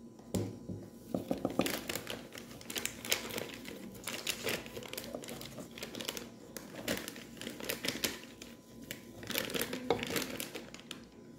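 Wooden spoon stirring dry cornstarch and powdered milk together in a pan, making irregular gritty scraping and rustling strokes.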